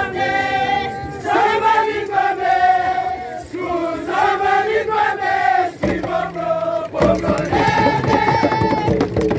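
A group of voices chanting in a Papua New Guinea highlands singsing, in long held notes broken by short pauses between phrases, over crowd noise.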